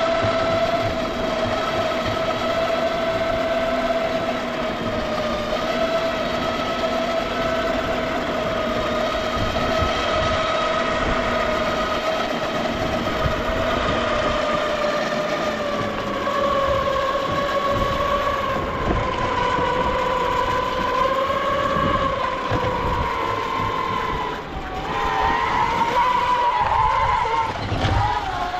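Ecomobl M24 Pro electric skateboard cruising on asphalt: a steady motor whine over the rumble of its pneumatic tyres. The whine sinks slowly in pitch in the second half and wavers near the end as the board slows.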